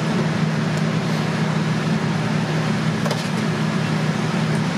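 Steady machine hum of commercial kitchen equipment, a fan-like running with a low drone. A few faint clicks about three seconds in, as a spoon scrapes in a steel hotel pan.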